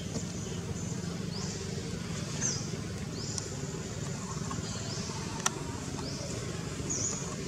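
Repeated short, high-pitched chirps, each rising then holding, over a low steady rumble, with one sharp click about five and a half seconds in.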